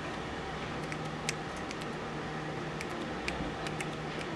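Steady open-air background noise with a low hum, broken by scattered sharp clicks and taps, the loudest a little over a second in.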